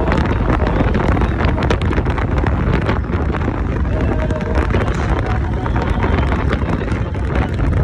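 Wind buffeting the microphone of a moving vehicle, a steady rushing with frequent crackles over a low rumble.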